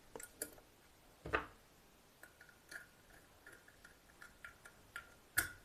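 Faint, scattered clicks and light ticks from handling the plug's wiring as a wire is fastened to a terminal point, with one louder knock about a second in and another click near the end.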